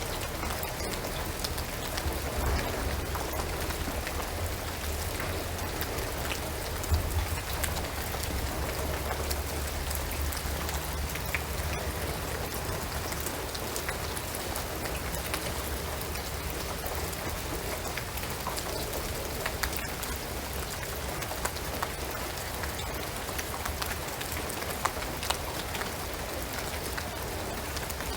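Steady rain falling on a shingled roof and pine trees, with many separate drops ticking through the hiss. A low rumble underlies the first ten seconds or so, then eases.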